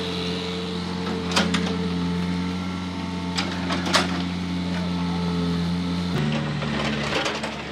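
Volvo EW55 wheeled excavator's diesel engine running steadily as the bucket digs into a dirt pile, with a few sharp knocks and clanks from the bucket and arm. About six seconds in the engine note drops to a lower pitch.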